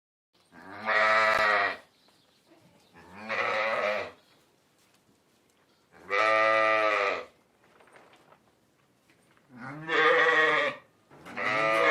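Sheep bleating: five long, wavering baas of about a second each, separated by quiet pauses.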